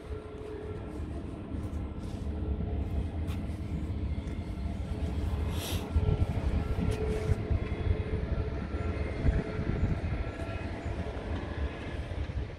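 Scania R truck's diesel engine idling steadily, a low rumble with a faint steady whine above it.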